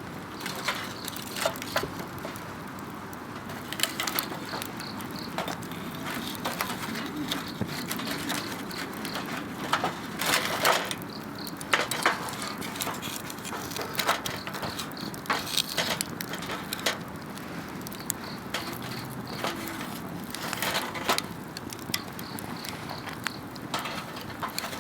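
Wood fire crackling, with irregular sharp pops and snaps, over steady chirping of insects.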